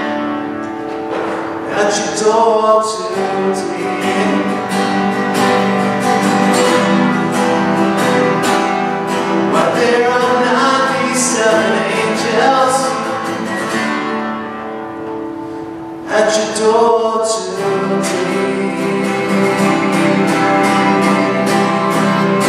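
A solo singer accompanying a song on a strummed acoustic guitar.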